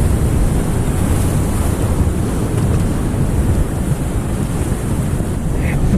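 Wind buffeting the microphone in a steady low rumble, with surf washing in behind it.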